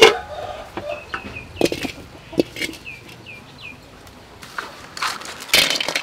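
A few knocks as a metal wok is set on a clay charcoal stove, while a bird gives a run of short, falling chirps. Near the end, a loud clatter as live rock crabs are tipped into the wok.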